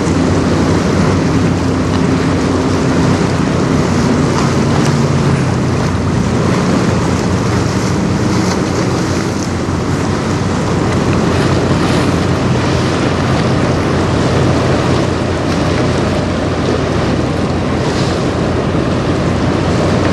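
Steady low drone of a tug-pushed barge passing close by, with water washing along the hull and wind buffeting the microphone. A low engine hum is strongest in the first few seconds, then sinks into the wash and wind.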